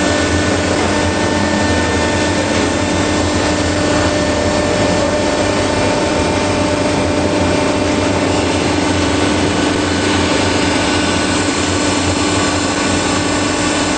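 Automatic baler running: a loud, steady machine drone with a constant hum and no pauses.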